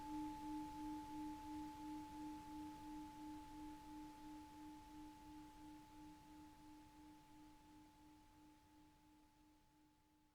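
Tibetan singing bowl ringing out after being struck or rubbed: a low tone with a fainter higher overtone, pulsing about three times a second as it slowly fades away.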